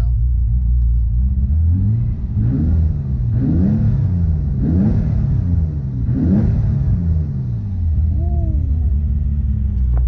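Twin-turbo Nissan 350Z's 3.5-litre V6 idling, then revved about four times in quick succession, each rev rising and falling back toward idle. A brief falling whistle follows near the end.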